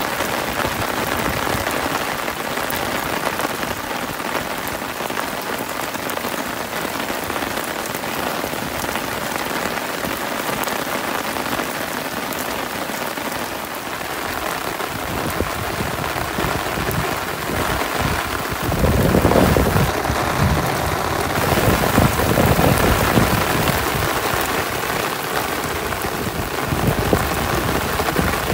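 Heavy rain pouring onto a flat concrete rooftop, a dense steady hiss of drops. A louder low rumble comes in about two-thirds of the way through.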